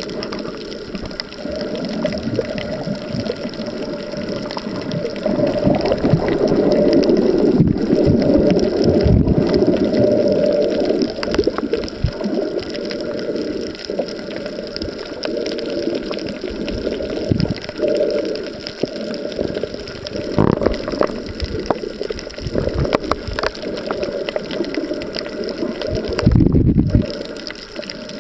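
Muffled underwater water noise picked up by a camera held below the surface: a continuous gurgling wash with several dull thumps, the loudest near the end.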